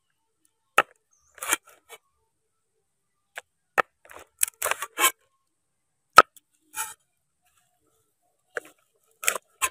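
Sharp snaps and short scratchy rustles, with silences between, as a freshwater prawn's legs, antennae and shell are pulled and snapped off by hand on a wooden cutting board.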